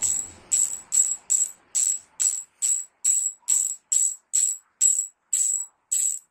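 Drag clicker of a Seahawk Mission 500 ultralight spinning reel as the spool is turned by hand: a bright, high clicking in evenly spaced bursts about twice a second.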